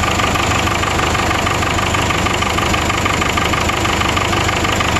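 Cummins 4BT 3.9-litre four-cylinder turbo diesel running steadily and loud. The engine has heavy crankcase blow-by, which the owner puts down to bad piston rings.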